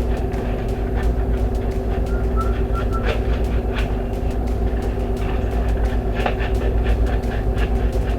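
A steady low mechanical hum, over which fine sandpaper scratches in quick, irregular strokes on a microwave door switch's metal terminal, cleaning off the burnt, corroded contact surface.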